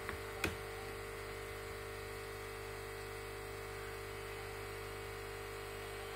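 Steady low electrical hum, with one sharp click about half a second in.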